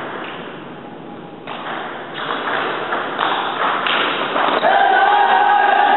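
Table tennis rally: the celluloid ball knocks on the paddles and table in a string of sharp hits, roughly one a second. About three quarters of the way in, a held singing tone comes in over the play.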